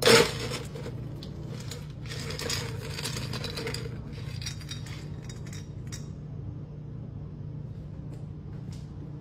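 Ice cubes clattering and clinking in a freezer drawer: a sharp clatter at the start, then scattered clinks and rattles that die away after about six seconds, over a steady low hum.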